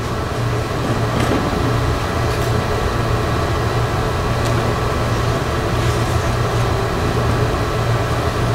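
Steady room noise: a low hum under an even hiss, with a few faint ticks.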